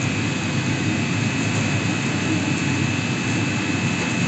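Steady machinery noise of a running chiller plant room, pumps and chillers, a constant low rumble with a thin high whine held over it.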